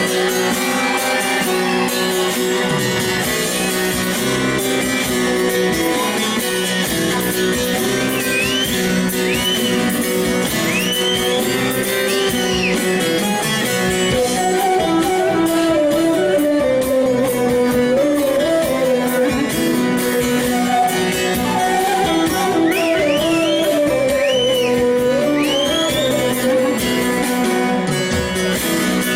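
Turkish folk music (türkü) played live, with plucked string instruments and a wavering melody line.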